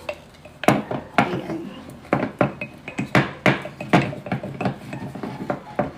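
Wooden spoon stirring a thick, sticky flour-and-water sourdough starter in a glass jar, knocking and scraping against the glass in an irregular run of taps, about two or three a second.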